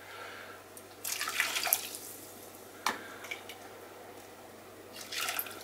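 Homemade chicken stock poured into a stainless steel saucepan of simmering white wine, splashing about a second in and again near the end. There is a single short clink about three seconds in.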